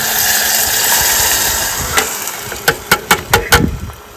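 Tomato puree tipped into hot oil in a cooking pan, sizzling loudly and dying down over about two seconds, then a quick run of sharp clinks.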